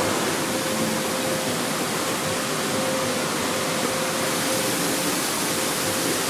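Steady rushing hiss of a waterfall.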